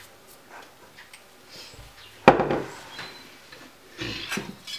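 Kitchen handling noises of bowls and utensils on a stone worktop: a few faint clicks, one sharp knock with a short ring a little before halfway in, and more light clatter near the end as the bowls are reached for.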